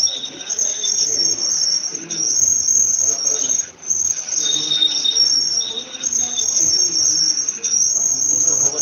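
Insects trilling: a loud, high shrill sound in stretches of one to two seconds with short breaks between them, and a second, lower tone joining in now and then.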